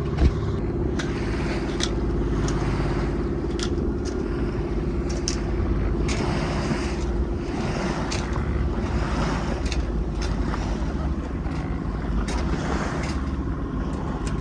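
A small sailboat's engine running steadily under way, with water washing past the hull in swells and occasional light clicks.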